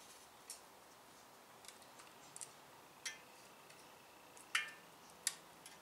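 Light metallic clicks and taps from a caliper and a steel straight edge being handled against the bell housing while the clutch-to-slave clearance is measured: about half a dozen sparse clicks, the last two the loudest, a couple with a brief metallic ring.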